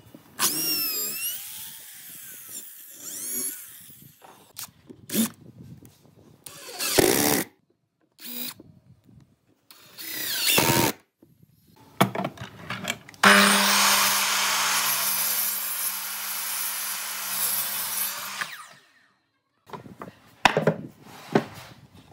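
Electric drill whining up and down in pitch as it bores into a wooden block, followed by several short bursts of tool noise and knocks; then a miter saw runs and cuts through a wooden board for about five seconds, the loudest part, stopping abruptly.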